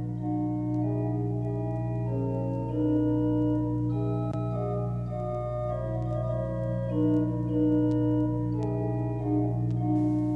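Organ music: a slow melody of long held notes over a sustained bass note.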